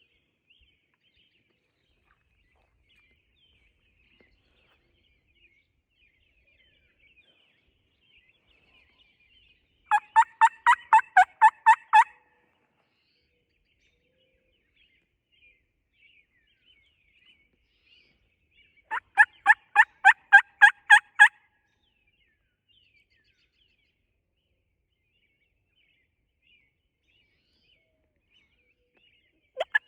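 Turkey hen call, run of yelps: two sequences of about ten evenly spaced yelps, about ten seconds in and again about nine seconds later, with another sequence starting at the very end. Faint songbird chirps sound between them.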